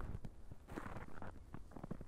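Footsteps crunching in dry, frozen snow at about −14 °C, a crisp crunch about a second in followed by a run of small crackles.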